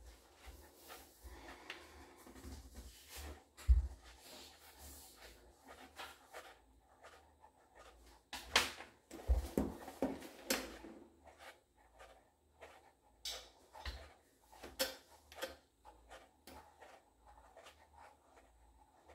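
Light clicks, taps and rubbing from a red high-heeled pump dangling off a foot in sheer pantyhose, with one low thump about four seconds in and a run of sharper clicks around the middle.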